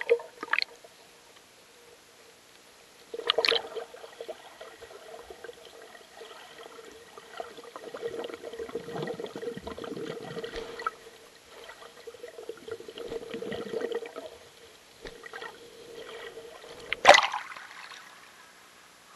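Creek water gurgling and sloshing around a camera held at and just below the surface, with sharp splashes at the start, about three seconds in, and near the end as it breaks the surface.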